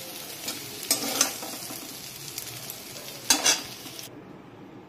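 Paneer and vegetables sizzling in hot oil in a steel kadhai while a steel ladle scrapes and clinks against the pan, loudest twice: about a second in and again about three and a half seconds in. The sizzling cuts off suddenly near the end.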